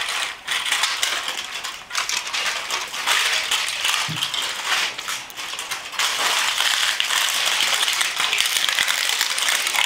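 Barbet puppies chewing and tugging at a plastic muffin package: a dense, continuous crinkling and crackling of thin plastic.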